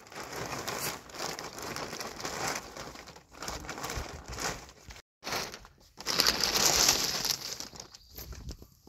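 Plastic tarp crinkling and rustling as it is handled, in uneven bursts, with a brief pause about five seconds in and the loudest crinkling just after.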